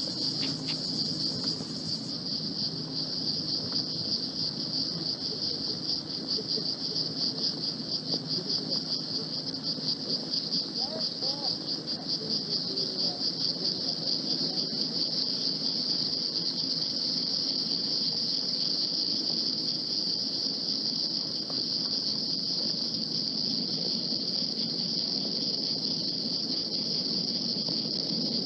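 Insects chirring steadily, a high-pitched rapidly pulsing drone, over a low hum.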